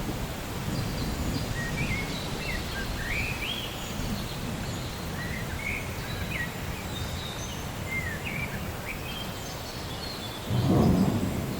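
Rain ambience with a steady low rumble of thunder. Birds chirp short rising and falling notes through most of it, and a louder rumble of thunder swells near the end.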